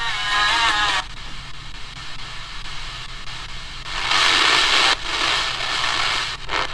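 Small portable radio's speaker giving off inter-station static as its tuning wheel is turned. In the first second a station's sound warbles and slides off-tune, then even hiss follows, with a louder burst of hiss about four seconds in.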